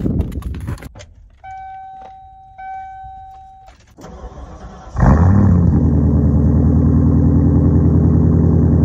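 Two steady electronic chime tones sound, then about five seconds in a Ford F-150 pickup's engine starts, flares briefly, and settles into a steady idle, heard close to the tailpipe.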